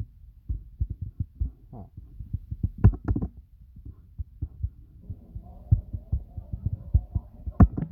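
Irregular low thumps and taps, about two a second, from fingers working a handheld phone's touchscreen, picked up close up by the phone's own microphone; two sharper knocks come about three seconds in and near the end. A faint hum joins in over the last few seconds.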